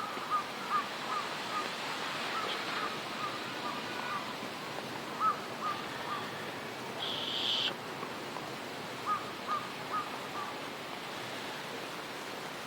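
Crows cawing in short series of two to four calls, repeated several times over a steady background hiss, with a brief sharper hiss about seven seconds in.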